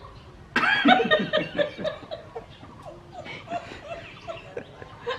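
A woman and a man laughing, starting suddenly about half a second in with a quick run of loud 'ha's that fade into softer chuckles.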